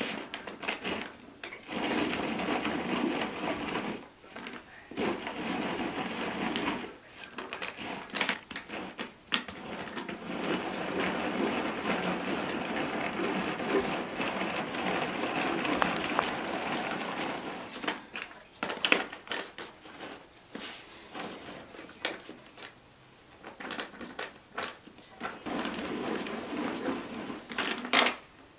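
Hand-cranked plastic food chopper being turned, its blades whirring and chopping onion pieces inside the bowl. The cranking comes in spells broken by a few short pauses.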